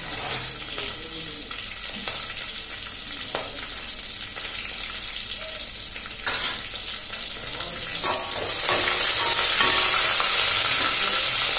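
Slit green chillies, curry leaves, dried red chillies and cumin sizzling in hot oil in an aluminium pot. There is one sharp clack a little over six seconds in, and from about eight seconds the sizzle grows louder as a spatula stirs them.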